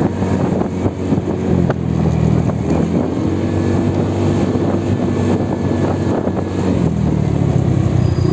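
Motorcycle engine running while riding, its pitch dipping and rising again about three seconds in and climbing near the end. Wind buffets the phone microphone.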